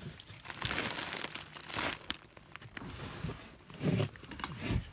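Rustling, scraping handling noise: a phone camera passed from hand to hand, with shirt fabric brushing across its microphone, in uneven bursts.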